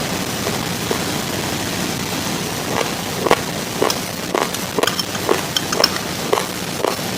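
Crisp, irregular crunches of raw uncooked basmati rice grains being chewed close to the microphone over a steady hiss. The crunches are sparse at first and come about twice a second from about three seconds in.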